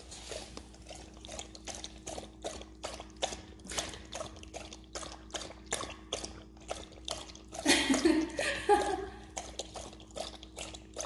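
Husky lapping water from a gravity-fed water dispenser bowl, a quick run of wet laps at about four a second. A brief louder sound comes about eight seconds in.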